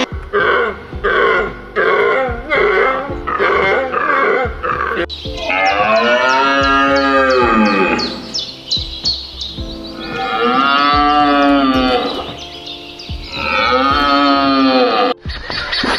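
Animal calls: a run of short calls about twice a second, then three long drawn-out calls, each rising and then falling in pitch.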